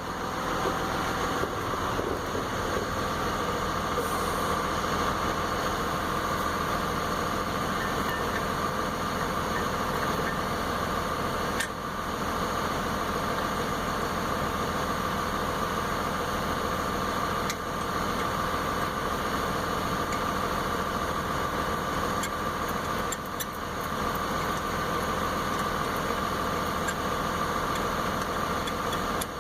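Steady mechanical drone, even in level with a constant hum-like tone, with a few faint clicks of tools being handled.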